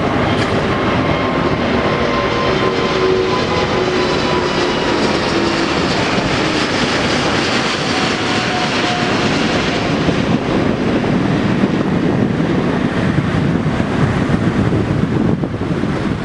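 Airbus A350's twin Rolls-Royce Trent XWB turbofans at climb power as the airliner passes overhead after takeoff: a steady loud roar with faint whining tones that slide down in pitch, the low rumble growing heavier in the second half.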